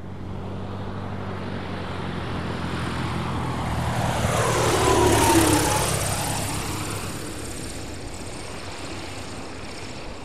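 Cessna 120 light propeller airplane passing close by, its engine and propeller growing louder to a peak about five seconds in, then fading as the pitch drops.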